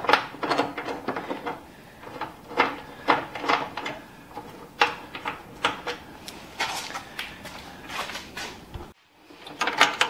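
Hand ratchet and half-inch socket loosening and removing the bolts on a snowblower's steel side panel: irregular metal clicks and clinks in short runs, with a brief silence near the end.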